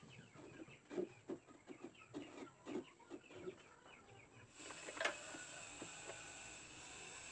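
A chicken clucking in short, low clucks, several a second, for the first few seconds. About four and a half seconds in, a steady hiss takes over, and one sharp louder sound comes shortly after.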